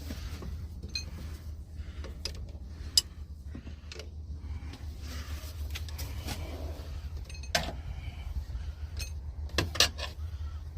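Scattered metallic clinks and knocks, as of tools and parts being handled, over a steady low rumble. The sharpest click comes about three seconds in, with a few louder knocks near the end.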